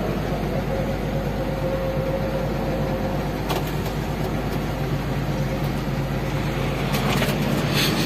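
Excavator diesel engine running steadily, heard from inside the operator's cab, with a higher whine that fades out about three seconds in.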